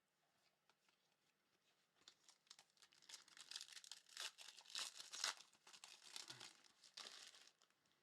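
Faint crinkling and tearing of a trading card pack's wrapper being opened by hand. It starts about two seconds in and stops shortly before the end.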